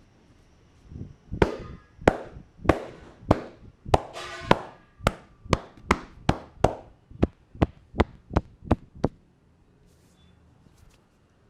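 A barber's hands striking a customer's head in a run of sharp percussive slaps during an Indian head massage: about seventeen strikes that speed up from about one and a half to three a second, then stop.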